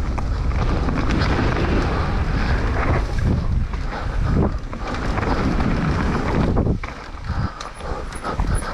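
Wind buffeting the microphone over the rumble and clatter of a mountain bike ridden fast over a rough trail, easing briefly about seven seconds in.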